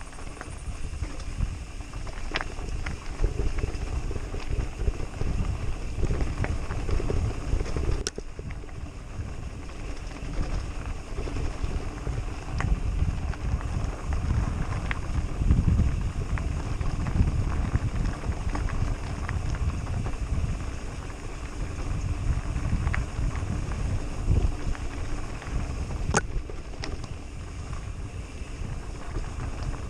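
Wind buffeting the microphone and the tyres of a mountain bike rolling over a dirt and gravel track, a steady rumble that rises and falls with the ground. A few sharp clicks break in, about two seconds in, around eight seconds in and near the end.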